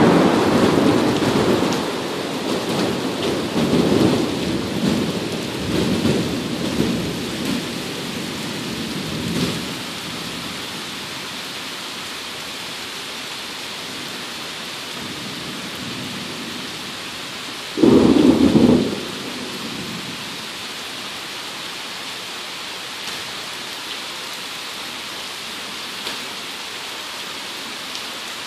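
Steady rain falling through a thunderstorm. A loud rumble of thunder rolls on in several swells for the first ten seconds or so, and a second short, loud crack of thunder comes about eighteen seconds in; after it, only the rain.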